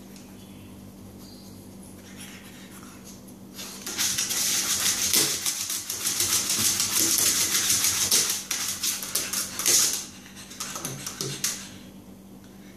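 A pug scrabbling and scratching, a dense run of rapid clicks and scrapes lasting about six seconds from about four seconds in, then a few shorter bursts. A low steady hum runs underneath.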